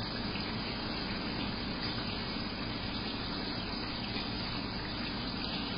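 Steady rushing of circulating water in a saltwater reef aquarium, from the tank's pump and water flow, with no change in level.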